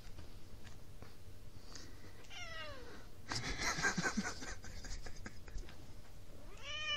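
Domestic cat meowing: a short meow falling in pitch a little over two seconds in, and another arched meow right at the end. Between them, from about three to four and a half seconds in, comes a louder, rough and noisy stretch.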